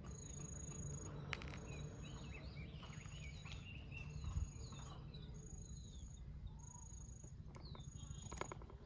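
Outdoor nature ambience: an insect repeating a steady high-pitched buzzing note, each about three quarters of a second long with short gaps, while small birds give quick falling chirps.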